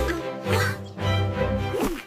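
Background music with sustained notes over a repeating bass line.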